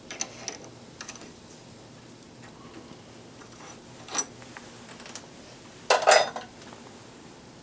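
Scattered metal clicks and clinks as the vise of a lathe milling attachment is loosened and a steel shaft is taken out of its jaws, with one louder metal clatter just before six seconds in as the shaft comes free.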